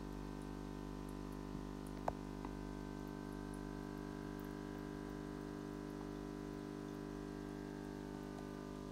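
Aquarium air pump driving sponge filters, running with a steady hum, with a few faint clicks about two seconds in.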